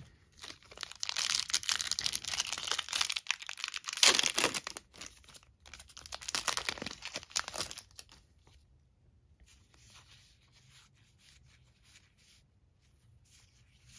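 Foil trading-card booster pack being torn open and crinkled, a dense crackle that peaks about four seconds in. After about eight seconds it drops to faint rustling as the cards are handled.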